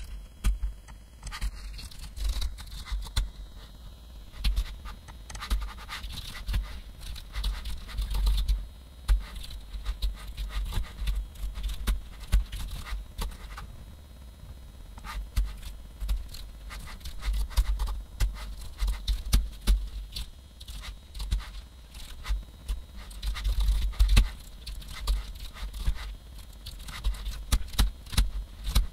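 Typing on a computer keyboard: rapid, irregular key clicks with dull thumps underneath.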